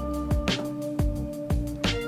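Background music with a steady beat of about two drum hits a second over held notes.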